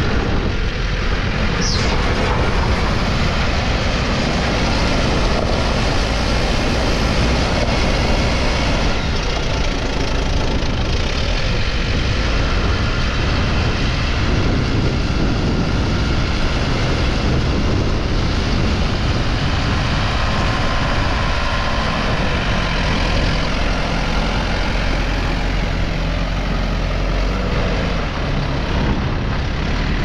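2005 New Holland LB90-B backhoe loader's diesel engine running steadily and loudly as the machine digs into a dirt pile with its front loader bucket and drives. A short high squeak sounds about two seconds in.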